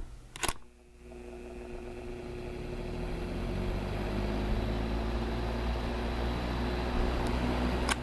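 2004 Duracraft 10-inch box fan (model DB100) switched on at low speed with a click: the motor hum and the rush of air build over a few seconds as the blades spin up, then run steady. Another sharp click near the end.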